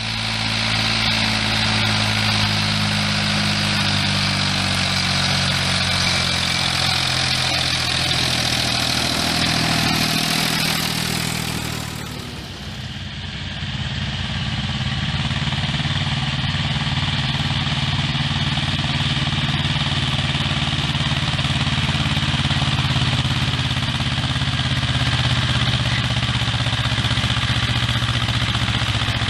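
Diesel farm tractor engines running steadily on a forest track. About twelve seconds in the sound changes abruptly to an Ursus tractor pulling a loaded log trailer, chugging at a steady pace and growing a little louder as it approaches.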